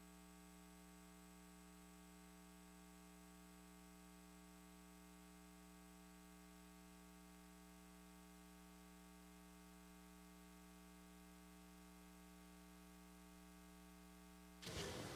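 Near silence: a faint steady electrical hum made of several even tones, with faint room sound coming in near the end.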